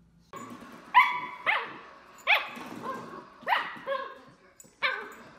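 A puppy barking: about six sharp, high barks spaced half a second to a second apart, each dropping in pitch.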